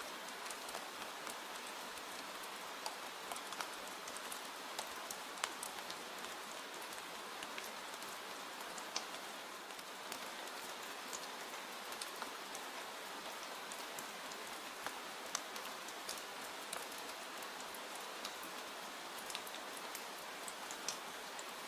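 Steady rain falling, an even hiss with scattered small sharp ticks throughout.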